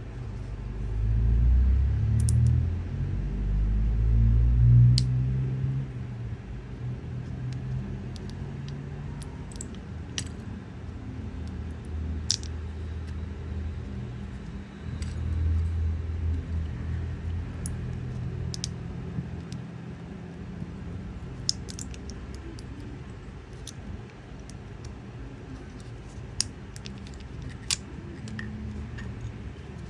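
3D-printed clicker keycap being clicked: sharp, irregular single clicks with gaps between them, over a low rumble that is strongest in the first few seconds.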